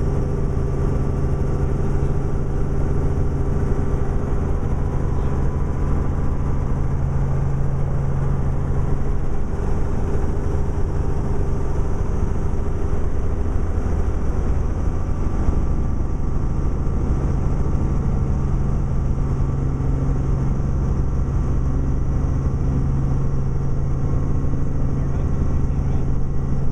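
Helicopter engine and rotor running steadily, heard from inside the cockpit.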